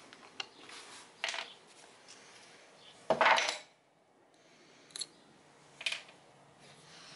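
Small hard objects being handled and set down on a wooden workbench: a few short clicks and knocks, with one louder half-second clatter about three seconds in.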